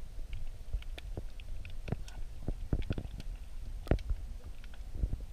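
Muffled sound heard by an underwater camera in a stream: a steady low rumble of current, with irregular clicks and knocks throughout and a stronger knock about four seconds in.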